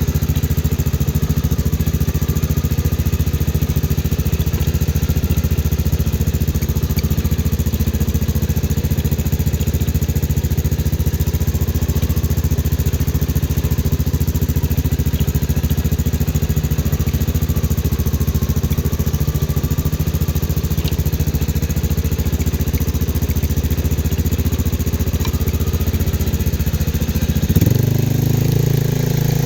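CFMoto 500 ATV's single-cylinder engine running at a steady speed. Near the end its speed rises and holds higher.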